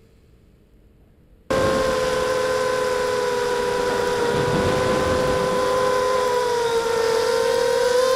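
FPV racing quadcopter's electric motors and propellers whining at a steady, slightly wavering pitch, heard close up from the quad's onboard camera with air rushing past. The whine cuts in abruptly about a second and a half in, after a faint stretch.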